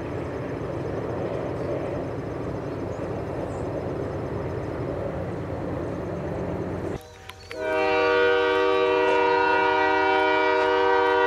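Freight train of autorack cars rolling past, a steady rumble. About seven seconds in it cuts off, and an approaching EMD diesel locomotive's air horn sounds one long, loud chord of several notes.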